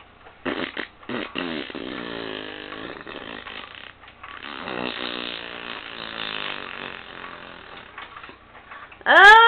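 Baby vocalizing in two long, low, raspy stretches, then near the end a loud high squeal of a yawn that rises and starts to fall in pitch.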